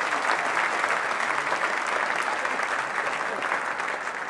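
Audience applauding after a choir's song, the clapping slowly dying down.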